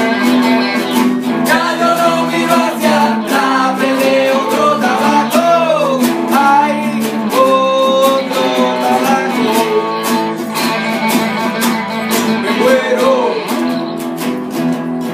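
Live guitar band music: several acoustic guitars strummed and picked together, with an electric guitar playing a melody line that bends in pitch.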